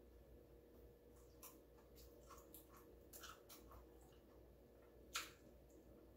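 Quiet crunching and chewing of a hard-shell corn taco: a scatter of soft crackles through the middle and one sharper crunch about five seconds in.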